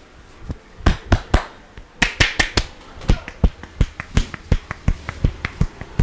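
Rapid, sharp hand slaps and taps of a percussive head massage, about twenty strikes at roughly four a second, starting about half a second in.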